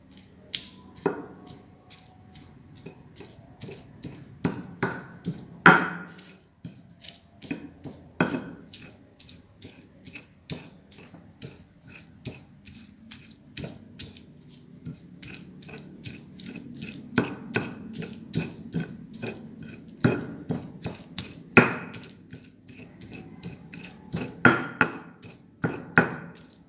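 Stone pestle pounding and grinding boiled chilies, shallots and garlic in a stone mortar (ulekan and cobek). It makes short knocks about two or three times a second, with a few much louder strikes. The chilies are being crushed coarsely, not ground to a paste.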